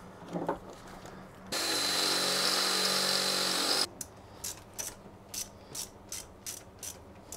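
Electric drill running steadily for about two seconds, enlarging the hole in a cable connector, then a string of irregular clicks from a socket ratchet.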